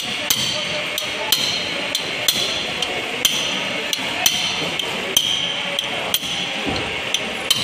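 Sharp metallic taps, about a dozen at an uneven pace, as a new axle oil seal is driven into the Maruti Suzuki Super Carry's rear axle housing with a metal drift.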